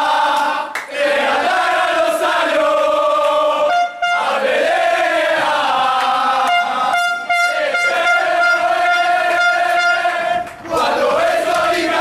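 A group of men chanting and shouting in celebration, with a horn blasting over them: a short blast just before four seconds in, then a long steady blast from about six and a half to ten seconds.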